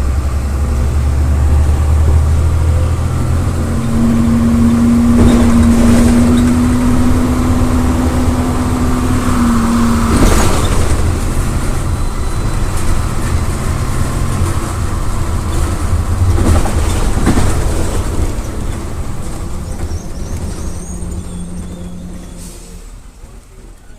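City bus running on its MWM 6.12 TCE turbocharged, intercooled diesel, a deep steady rumble with a steady whine for several seconds near the middle and a few short sharp noises. The sound fades out toward the end.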